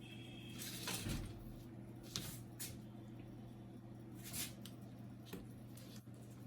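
Faint scattered clicks and scrapes of tweezers and small plastic parts being worked while releasing a spring-loaded lock on a laser printer's fuser unit, over a steady low hum.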